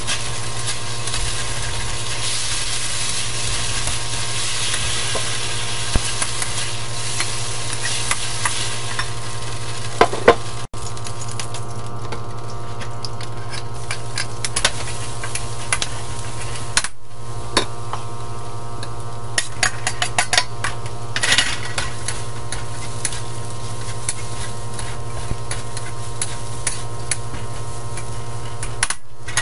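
Stir-frying in a carbon-steel wok: food sizzling in hot oil while a metal spatula scrapes and clinks against the wok, over a steady low hum.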